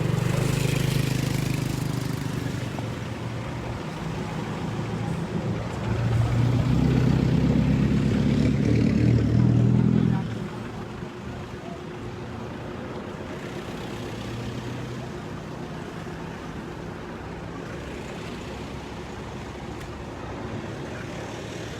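Motor vehicle engines running on a road, loudest about six seconds in. The engine sound cuts down suddenly about ten seconds in, leaving a lower steady hum.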